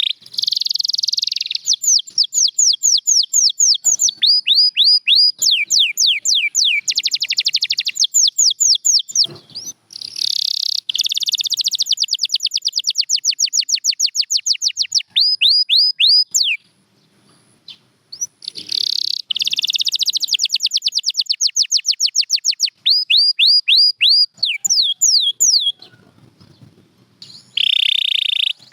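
Domestic canary singing: fast trills of repeated, high, down-sweeping whistled notes strung into phrases several seconds long, with two pauses of about two seconds.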